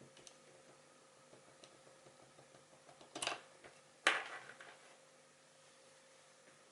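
Two brief handling sounds of USB cables and the phone being moved and plugged, about three and four seconds in, the second trailing off over half a second, over faint room tone with a low steady hum.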